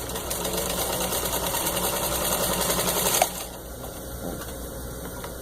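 1949 Singer 15-91 sewing machine, with its gear-driven potted motor, running at speed and stitching through four layers of thin leather. It makes a fast, even rattle that stops with a click a little over three seconds in, leaving a low steady hum.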